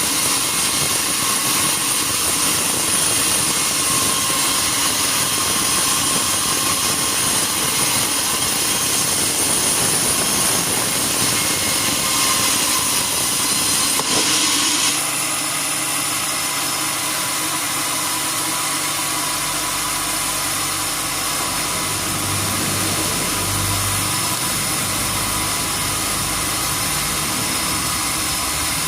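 Sawmill machinery running steadily with a hissing, whining high end. About halfway through the sound changes: the hiss drops back and a lower, steady engine hum comes in.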